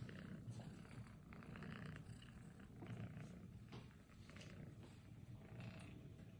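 Domestic cat purring, a faint low rumble, with a few brief soft rustles.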